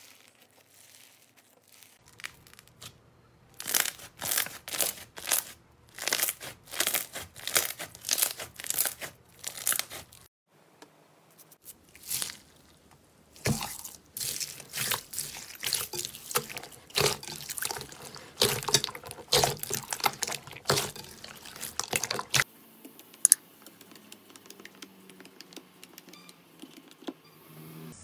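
Bead-filled slime (floam) being squeezed and pressed by hand, giving crunchy crackling and popping in repeated bursts of about two squeezes a second. The sound comes in several separate takes that cut in and out, and is quieter and finer near the end.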